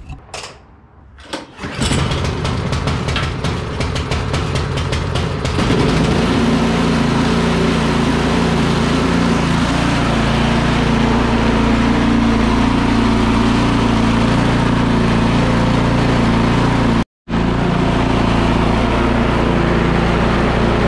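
Craftsman 24-inch snow blower's 208 cc engine starting about two seconds in, running unevenly for a few seconds, then settling into a steady run. It is being warmed up to loosen the oil before an oil change.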